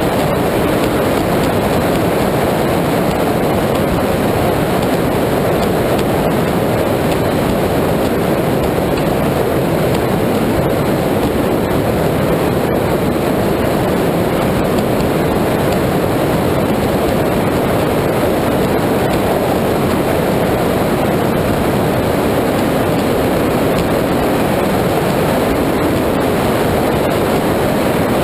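Performance powerboat running at speed on open water: a steady, loud rush of wind, water and engine noise with no change in level, heard from its deck.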